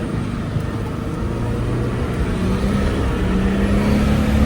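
4WD engine running while driving on beach sand, its drone steady at first, then rising slightly in pitch and growing louder through the second half.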